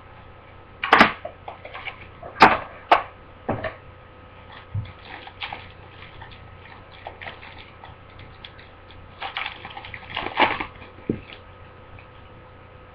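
Scattered crinkles, taps and rustles of a trading-card box and its wrapping being opened and the cards handled. The sharpest clicks come about a second in and around two and a half seconds in, with another cluster of handling noise near ten seconds.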